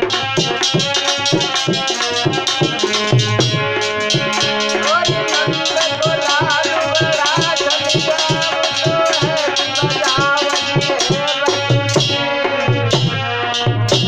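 Devotional bhajan music: a fast, dense hand-drum rhythm under held accompanying notes, with a wavering melody line in the middle.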